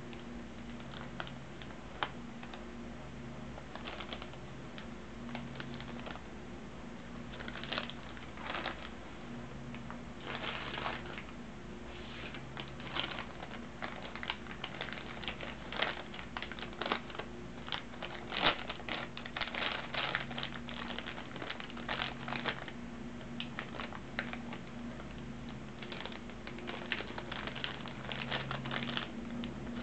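Clear plastic bags crinkling and crackling as they are handled, with the plastic model-kit parts on their sprues clicking and rattling inside. The crackles come in irregular clusters, busiest in the middle and again near the end, over a faint steady hum.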